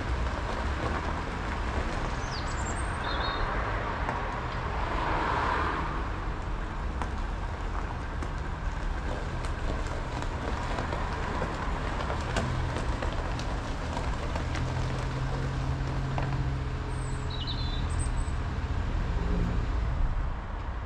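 The 2006 Ford Focus Mk2's 1.6 petrol engine running at low speed as the car manoeuvres, over a steady low rumble; a bird chirps briefly twice.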